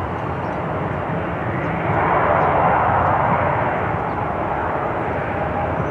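Boeing 737 jet on landing approach passing by: a steady engine rush that swells about two seconds in and then eases a little.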